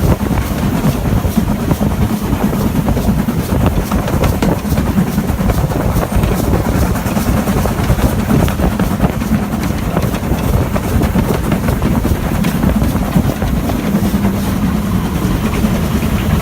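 Train running on the line: a steady, loud rumble with scattered clicks.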